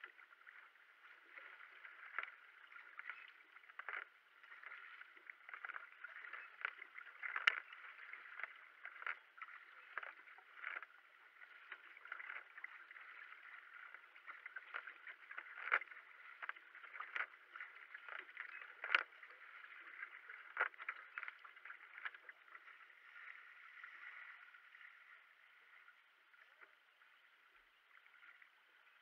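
Racing kayak under way: a steady rush of water along the hull, with the sharp splash and knock of the paddle blades catching the water about once or twice a second.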